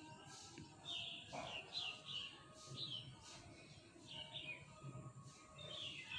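Birds chirping faintly: short, falling chirps repeated roughly every half second.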